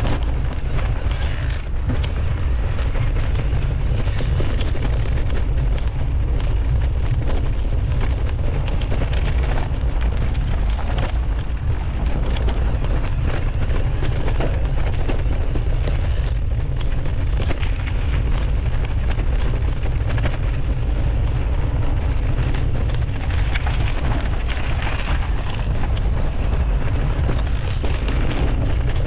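Mountain bike riding a rough dirt trail, heard through a GoPro action camera: a constant low buffeting of wind on the microphone over tyre noise, with frequent small rattles and knocks from the bike over the ground.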